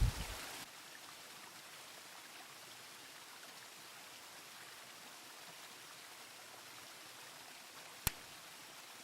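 Steady, faint rushing of a mountain river. A louder low rumble at the very start cuts off within the first second, and a single sharp click comes about 8 seconds in.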